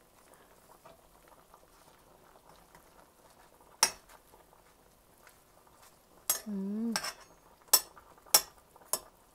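A metal ladle clinking against the rim of a metal stockpot as bok choy is pushed down into the soup. There is one sharp clink about four seconds in, then three quick clinks near the end, about half a second apart. A short hummed voice sound comes just before those last clinks.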